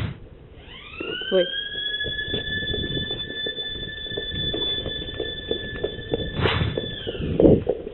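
An electric siren winding up to a steady high wail, holding for about six seconds, then winding down near the end, with scattered knocks underneath.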